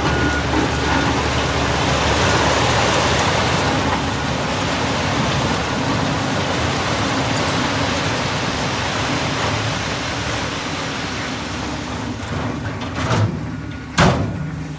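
Dump truck unloading soil and stone: a rushing, rattling slide of material out of the tipped bed over the diesel engine, heaviest in the first few seconds and slowly easing. Two sharp bangs come near the end.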